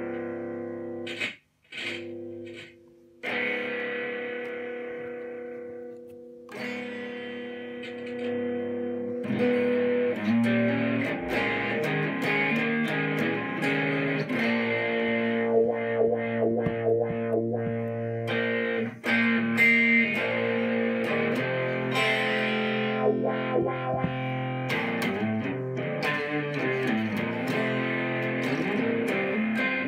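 Distorted electric guitar played through a freshly repaired George Dennis overdrive wah-wah pedal: the pedal is working again. Held chords ring at first, with the sound cutting out twice in the first few seconds. Busier playing follows from about nine seconds in.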